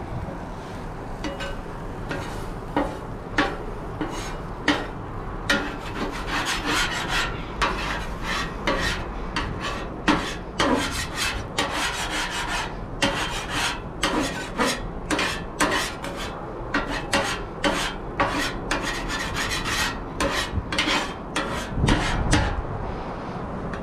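Metal scraping across the steel surface of a flat-top griddle, in many quick, irregular strokes that come thickest in the middle.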